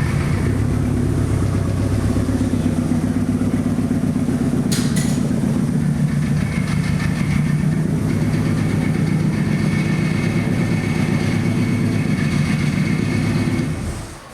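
Subaru Impreza STI's flat-four boxer engine running steadily at low revs, with its even exhaust rumble. There is a sharp click about five seconds in, and the sound fades out near the end.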